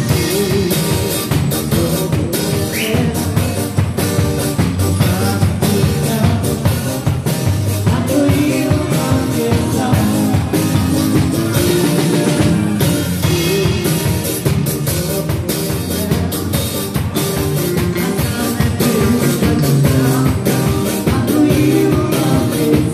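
Live band playing loud dance music: a drum kit keeps a steady beat under electric guitar, with a singing voice.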